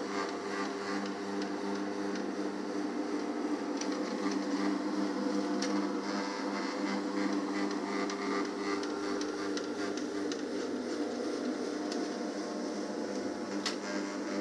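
TASKI single-disc rotary floor machine running steadily, its motor giving a constant hum as the bonnet pad spins over carpet, buffing it. A couple of faint clicks over the hum.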